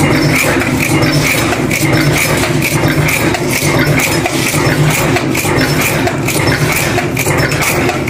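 Multi-station cold-forging bolt former running at speed while forging double-end studs: a fast, even rhythm of metal strokes over a steady machine hum.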